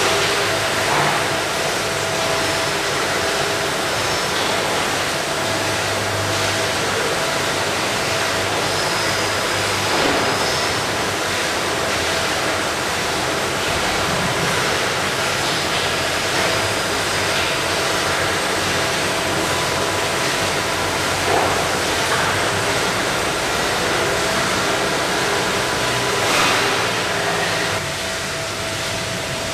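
Meyn automatic poultry evisceration line running: a steady, loud rushing din of the carousel machines, with a few steady hum tones, faint high whistles and occasional knocks. The level drops a little near the end.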